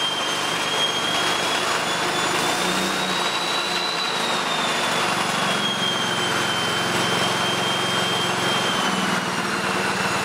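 Honda four-stroke petrol engine running steadily, belt-driving a Fisher & Paykel Smart Drive washing-machine motor as a generator, with the electric arc it powers hissing and crackling. A high whine rises a little about four seconds in and then falls back.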